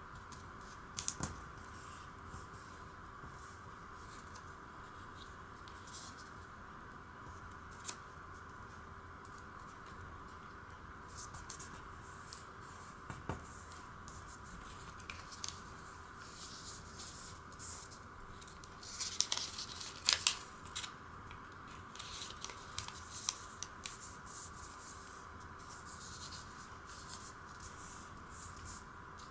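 A square sheet of origami paper being folded and creased by hand: scattered crisp rustles and scrapes as the paper is handled and the folds are pressed down. They are busiest and loudest about two-thirds of the way through, over a steady faint background hum.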